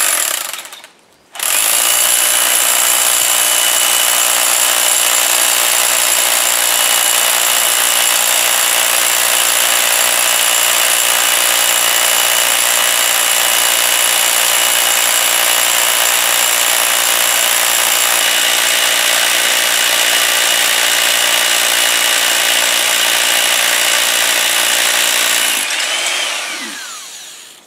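Hilti TE 14 rotary hammer drilling into granite with a carbide bit: a short burst, a brief stop, then a steady run of about 24 seconds. Near the end the motor winds down with a falling whine.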